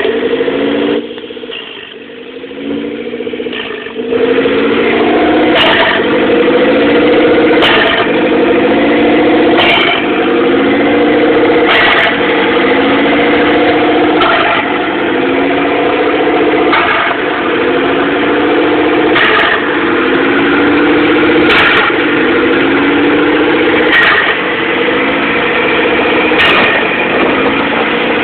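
1997 Mitsubishi Eclipse GS-T's turbocharged 4G63T four-cylinder, with an open exhaust and no downpipe, idling rough and surging: the revs climb and fall back about every two and a half seconds. The level dips for a few seconds near the start before the surging settles into its cycle.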